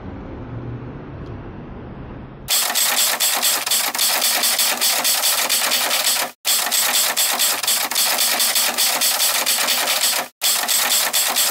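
Low hum of city street ambience, then from about two and a half seconds in a loud, rapid clatter of typewriter keys that runs on with two brief breaks: a typing sound effect.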